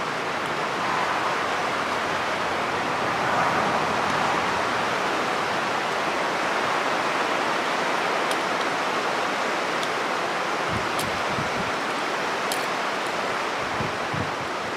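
A steady rushing hiss, with a few faint clicks of needle-nose pliers working wires off an electrical outlet's terminals and some low knocks near the end.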